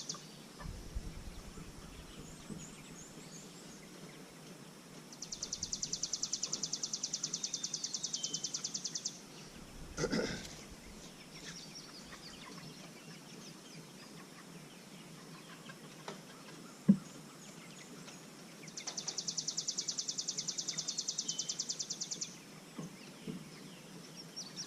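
Cicadas buzzing in a high, rapidly pulsing drone, twice, each time for about four seconds, over a faint outdoor background. A short louder sound comes near the middle, and a single sharp knock about two-thirds of the way through.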